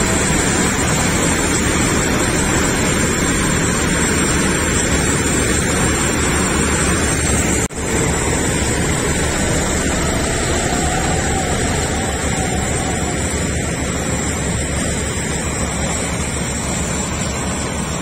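John Deere tractor's diesel engine running under load as it pulls a loaded trolley over corn stubble, a steady din that fades a little as the tractor moves off. There is a short break in the sound about eight seconds in.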